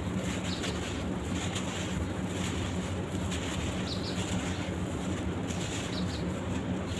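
Charcoal, sand and cement block crumbling: faint scattered crackles over a steady hiss and low hum.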